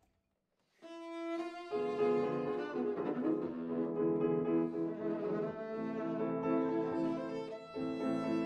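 Background music led by bowed strings such as violin, with sustained notes. It starts after a brief silence about a second in and grows fuller about two seconds in.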